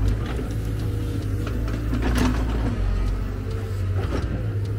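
Heavy machinery's engine running with a steady low rumble, with a few short knocks over it.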